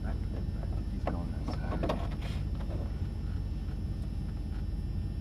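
Steady low rumble of a car engine idling, heard from inside the cabin while stopped at a traffic light.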